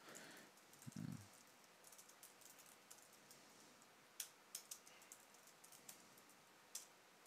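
Faint typing on a computer keyboard: scattered, irregular keystroke clicks.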